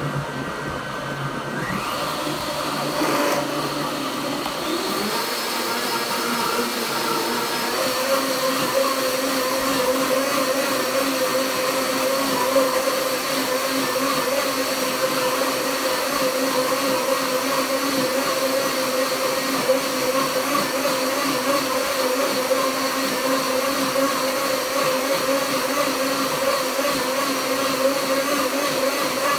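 Countertop blender running continuously, blending a thick mix of strawberries, milk and sugar into a smoothie. Its pitch shifts over the first several seconds, then holds steady.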